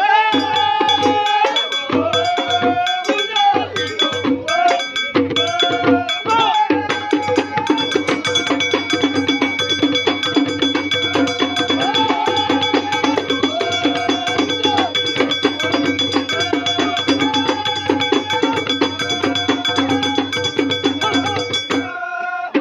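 A group of men sing a chant together to frame drums (bendir) played in a Moroccan folk line dance, with a bright, ringing clank in the beat. Long held sung phrases fill the first several seconds. From about seven seconds in the drumming thickens into a fast, continuous beat under shorter sung phrases.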